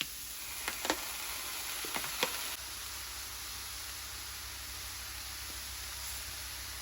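Food frying in hot oil, a steady sizzle, with a few short taps in the first couple of seconds.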